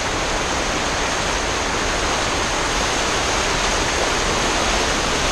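Waterfall: steady rushing of falling water.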